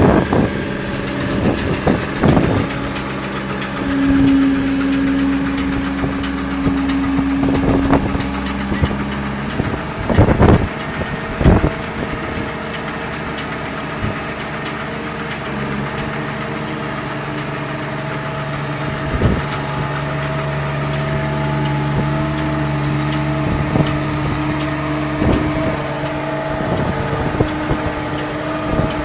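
Engine running steadily as it powers a large round baler rolling a bale, its hum shifting in pitch a few times, with several sharp knocks and clanks from the machinery.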